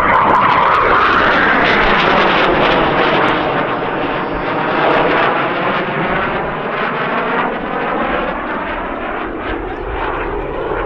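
Jet noise from a Northrop F-5E Tiger II's twin General Electric J85 turbojets as it flies past. It is loudest at the start, with a falling sweep in pitch, and slowly fades as the jet moves away.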